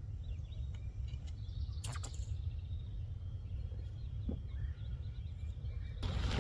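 Small birds chirping over a steady low rumble of wind on the microphone, with a sharp click about two seconds in. Just before the end the wind noise suddenly grows louder.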